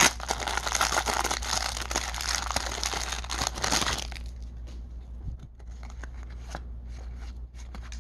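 Foil baseball card wrapper being torn open and crinkled for about the first four seconds, then the quieter flicking and rustling of the cards being handled.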